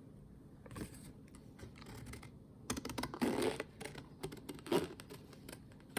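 Scissors snipping through thick printed paper: a run of irregular clicking snips and paper crackle, loudest a little past three seconds in, with another sharp snip near five seconds.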